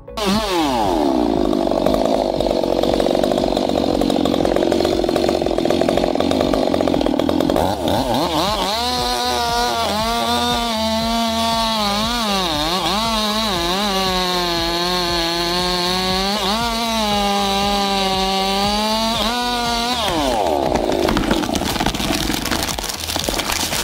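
Two-stroke chainsaw running at high revs while cutting into a large tree trunk. The engine pitch wavers up and down as the chain bites and loads in the wood, with a rougher, noisier sound at the start and near the end.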